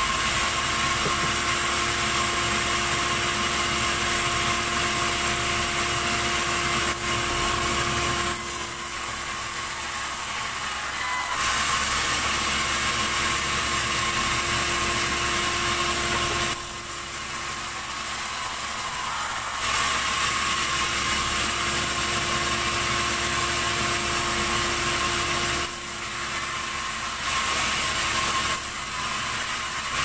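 Sawmill saw running and cutting very hard keranji timber: a loud, steady whine and hiss. The noise drops back for a few seconds at a time, three or four times.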